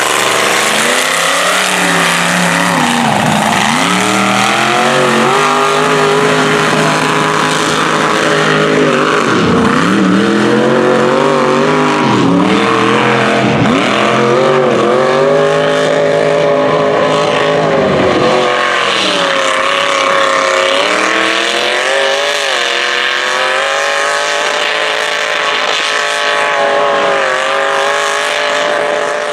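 Mega mud truck's engine revving hard while the truck spins through the mud. Its pitch drops sharply and climbs back again and again as the throttle is worked, over a steady hiss of mud and water thrown by the spinning tires.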